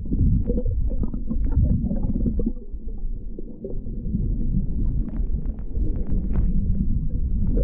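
Dull, heavily muffled low rumble with faint knocks and taps through it; all but the lowest sounds are cut off.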